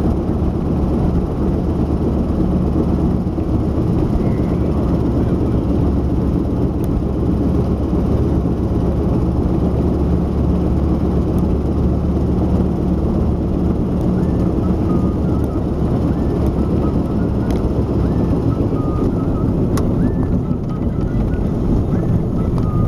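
GAZ M-20 Pobeda driving at steady speed, heard from inside the car: a dense, even road and drivetrain drone with several steady low hums. It is the rear axle's cyclic, speed-linked noise, which persists even when coasting.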